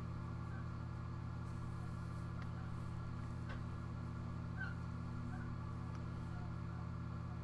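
Steady electrical hum with a low buzz from a Bradley digital electric smoker that has just been switched on, with a few faint short chirps around the middle.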